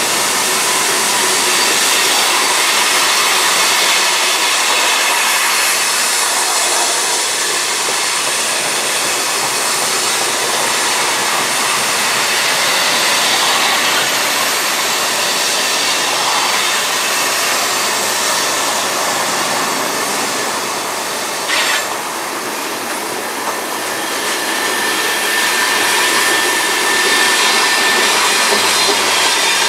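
BNSF freight cars rolling past on a curve: a steady rumble and rattle of steel wheels on rail. There is one sharp click about two-thirds of the way through, and a thin wheel squeal in the last few seconds.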